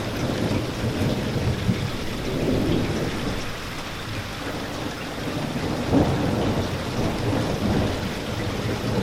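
Steady rain falling with a low, rolling rumble of thunder underneath; the rumble swells and fades, with a sharper crack about six seconds in.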